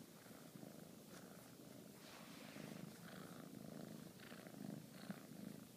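Bengal kitten purring softly and steadily while being stroked.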